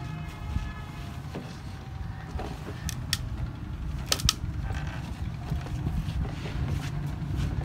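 Steady low rumble with a few sharp knocks and clicks scattered through it, the strongest a quick double knock about four seconds in; a faint voice in the first second.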